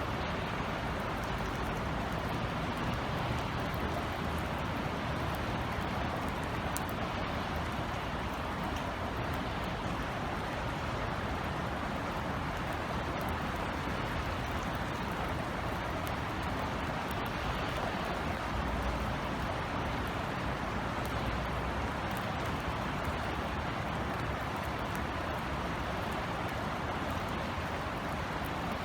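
Rain falling steadily as an even hiss of drops, with a few faint sharp drip ticks and a low rumble underneath.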